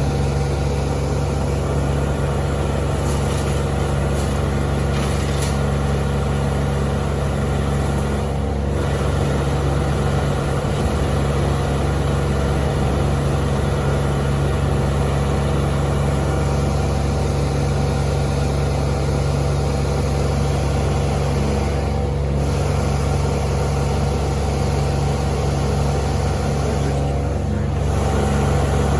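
Large engine running steadily at a constant speed, with an even low hum.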